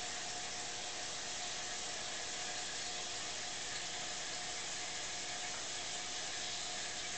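Steady hissing and bubbling of aquarium water churned by air bubbles at the surface, with a faint steady hum beneath it.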